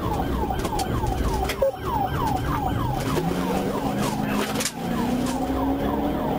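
Police car siren in a rapid yelp, quick falling sweeps about four a second, with the patrol car's engine rising in pitch as it accelerates from about halfway through.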